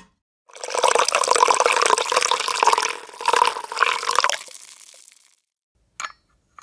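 Liquid pouring steadily into a vessel for about five seconds, easing off toward the end, followed by a short click about a second later.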